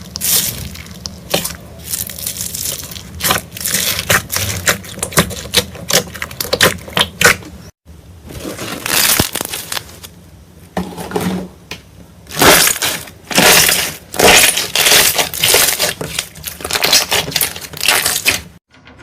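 Slime being squeezed and poked by hand, giving dense runs of crackling and popping, with a sudden cut to another clip about eight seconds in.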